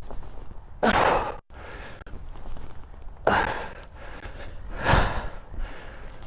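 A man's sharp, forceful exhales, a held breath let out in short bursts: one about a second in and another about three seconds in.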